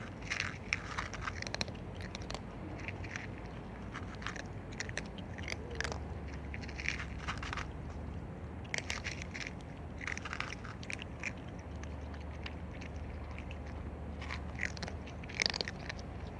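Cat chewing and crunching its food in irregular bursts of quick bites, with short pauses between them.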